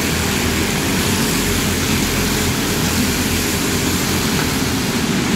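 Predator-class racing karts, each with a small single-cylinder four-stroke engine, running at racing speed, their engine noise overlapping in a steady level.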